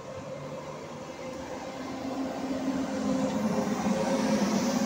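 ETR 500 Frecciarossa high-speed electric train rolling slowly past, its running noise carrying a steady electric hum that grows louder from about halfway through.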